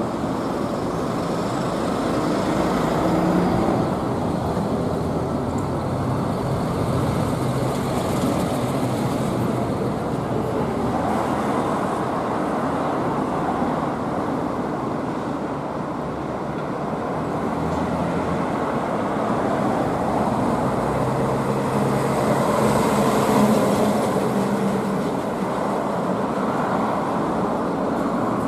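Decorated diesel trucks driving past in city traffic, their engines running under load with a low, steady engine note. Among them is a truck with a split exhaust manifold (mani-wari), which makes its exhaust louder and more forceful. The sound swells slightly as trucks pass, about three seconds in and again near the end.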